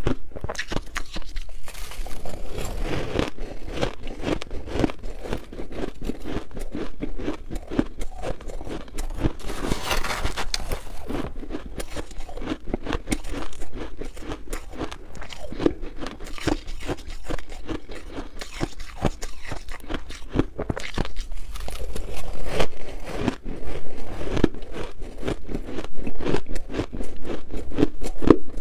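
Close-miked crunching and chewing of shaved ice, a dense, rapid run of crisp crunches.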